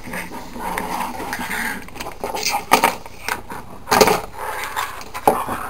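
Hard plastic toy fence panels being handled and fitted into their plastic base pieces: light rustling with several sharp plastic clicks and knocks, the loudest about four seconds in.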